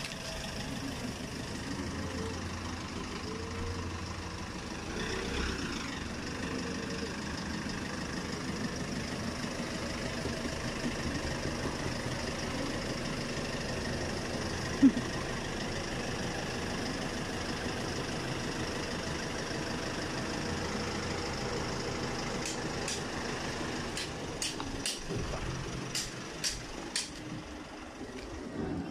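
Van engine idling steadily, with one sharp knock about halfway through and a run of short clicks near the end.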